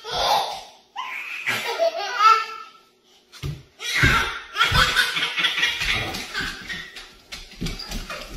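Hearty laughter in repeated bursts, with a brief break about three seconds in before it picks up again.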